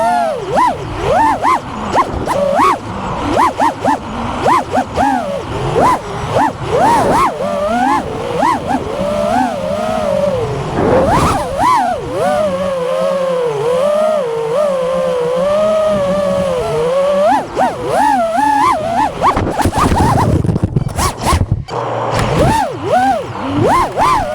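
FPV racing quadcopter motors whining, the pitch swooping up and down quickly as the throttle is punched and eased, with a steadier wavering whine about halfway through.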